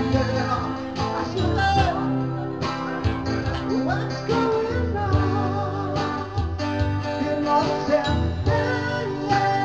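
Live music led by guitar, with a steady low bass line underneath.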